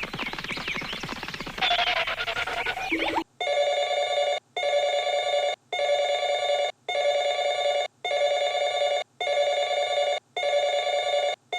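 A steady electronic tone beeping in long pulses of about a second each with short gaps between, starting about three seconds in, after a busy stretch of noise with short sliding chirps.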